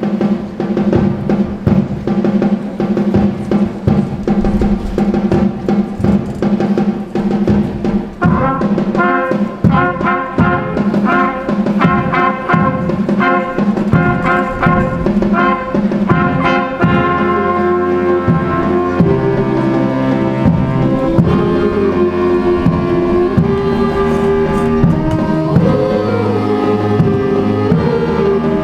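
Live instrumental music by a conservatory ensemble: a held low note under regular beats, then a melody enters about eight seconds in, and fuller sustained chords with a bass line follow near the middle.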